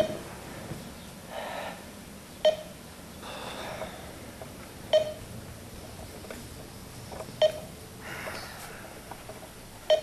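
Short electronic beep repeating every two and a half seconds, five times: a countdown-timer alarm warning that the time to enter the code and push the button is running out.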